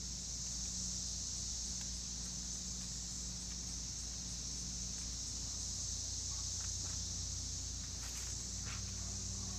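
Insects chirring steadily, with a low steady hum underneath; a few faint clicks sound near the end as the carburetor is worked on.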